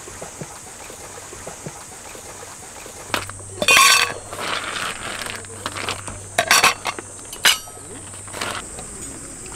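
A steady, high-pitched insect chorus. From about three seconds in it is broken by several sharp clinks and knocks, the loudest about four seconds in, from cups or gear being handled.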